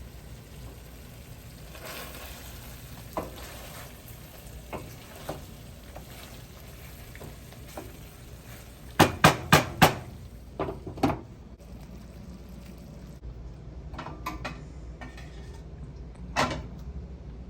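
A cooking utensil stirring a pot of Panang chicken curry and knocking against the pot. A quick run of four clinks comes about nine seconds in, two more follow just after, and a single one comes near the end, over a faint steady background.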